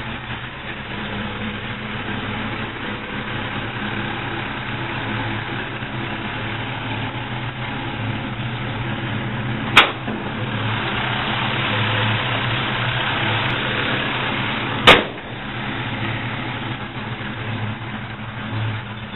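Car engine idling steadily, with two sharp clicks about five seconds apart.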